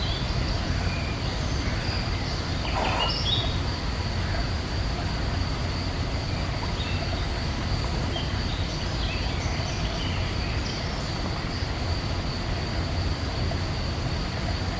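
Woodland birds giving short, scattered chirps, with one stronger call about three seconds in. Under them run a steady low rumble and a thin, continuous high tone.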